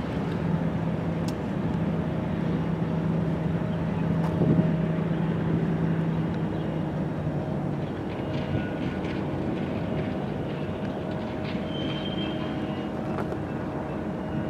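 Freight train with its diesel locomotives running: a steady low engine drone that drops away about eight seconds in, over a continuous rumble of train noise.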